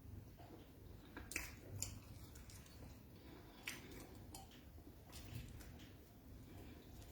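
Faint close-miked eating sounds from a meal of beans and fried plantain: soft chewing with a few sharp clicks, like a spoon on a plate or teeth, the clearest about a second and a half in and near the middle.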